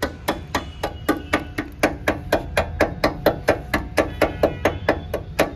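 A hand tool struck rapidly and evenly against the steel upright of a custom chassis-mount car wing, about four strikes a second, each with a short metallic ring.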